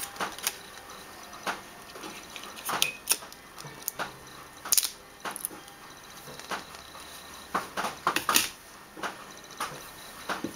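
Handling noise from an iRing package and its small plastic parts: irregular light clicks, taps and rustles of cardboard and plastic over a steady faint hiss, with the sharpest clicks about five and eight and a half seconds in.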